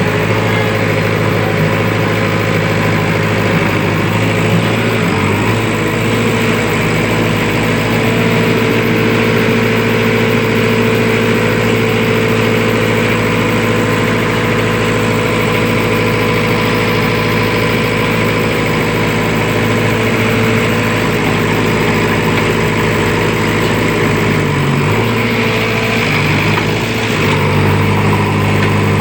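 Diesel engine of a JCB backhoe loader running steadily. Its note dips briefly and then steps up a little near the end.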